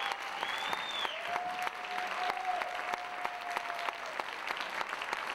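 Audience applauding, a dense, steady clapping, with a long held high tone sounding over the clapping through much of it.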